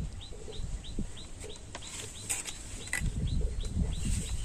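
A bird repeats a short high chirp about three times a second. Scattered knocks and a low rumble are mixed in, loudest near the end.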